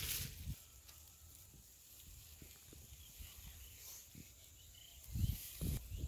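Hands splashing in shallow muddy ditch water: a short splash at the start, then quiet outdoor ambience with a few faint high chirps, then more splashing with low thumps about five seconds in.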